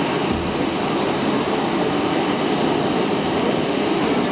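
Jet airliner engines running, a steady, even rushing noise with no breaks.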